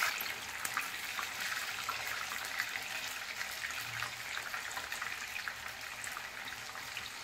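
Hot oil in a kadhai sizzling steadily with dense fine crackling as potato-wrapped chicken pieces deep-fry.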